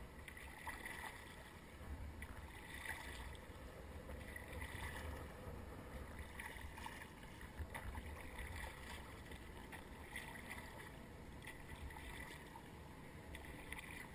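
Kayak paddle strokes: the blades dip and splash faintly in the water in a steady rhythm, about one stroke every second or two.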